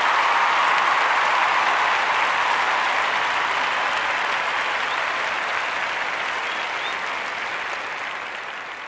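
Large crowd cheering and applauding, fading down toward the end.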